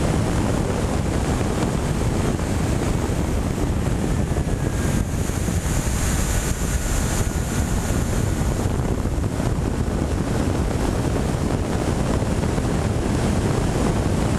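Radio-controlled airplane in flight heard from its onboard camera: a steady rush of wind over the microphone, with a faint motor whine drifting in pitch underneath.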